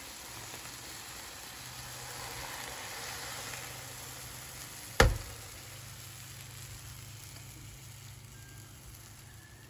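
Cold sugar syrup poured over hot, freshly baked şekerpare cookies on a metal baking tray, hissing and sizzling as it hits them; the sizzle slowly fades toward the end. A single sharp click about halfway through.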